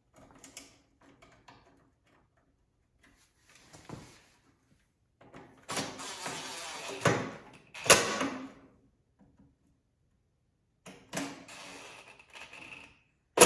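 Aerosol spray paint can hissing in two spurts of a second or two each, with a sharp knock between them and a louder one at the end.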